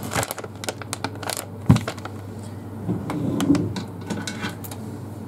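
Plastic pouch of vacuum-packed corn crinkling and crackling irregularly as it is handled on a table, with a single thump about a third of the way in.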